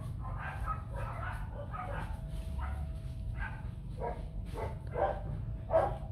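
Dogs barking over and over in short, repeated barks that come about every half second in the second half, over a steady low rumble.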